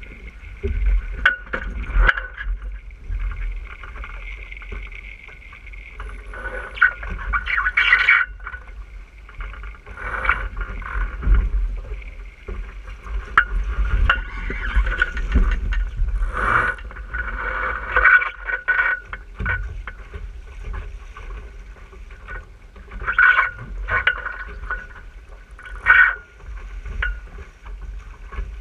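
An RS 600 sailing dinghy under way: steady wind rumble on the microphone, with water rushing and splashing against the hull in irregular surges, and scattered sharp knocks and taps from the boat.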